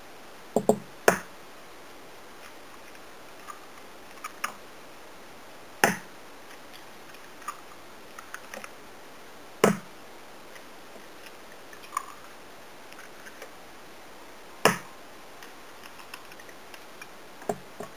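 Eggs cracked one after another on the rim of a mixing bowl: sharp single knocks every few seconds, with faint taps from the shells between them.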